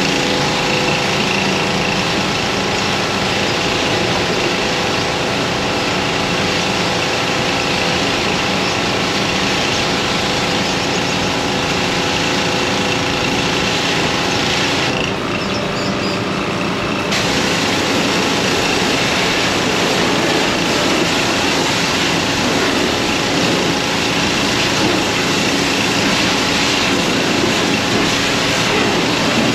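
Gas pressure washer running steadily, its small engine under a constant hiss. The hiss drops away for about two seconds midway, then returns.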